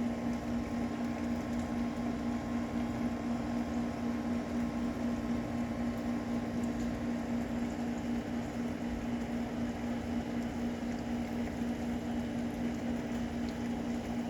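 Steady mechanical hum with two low, steady tones, running evenly without change.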